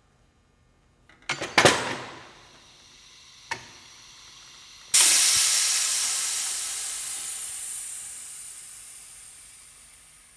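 Clattering metal knocks, one sharp click, then a sudden loud hiss of compressed air escaping from the clamp carrier's air system, fading slowly over about five seconds.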